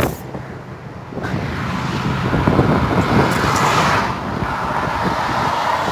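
Motorway traffic: the tyre and engine noise of cars on the road, swelling about a second in and easing off near the end.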